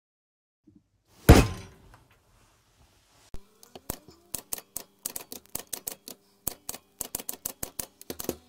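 A single heavy thump, then manual typewriter keys striking one after another, two or three clicks a second, over a faint steady hum.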